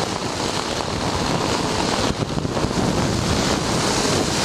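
Wind rushing and buffeting over the microphone of an open-cockpit ultralight trike in flight, with the trike's engine running beneath it, in gusty, turbulent air on approach.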